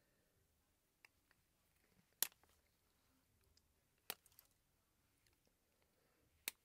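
A few sharp, isolated clicks as overpour is trimmed off a cured resin casting with a small cutting tool, the loudest about two seconds in, between stretches of near silence.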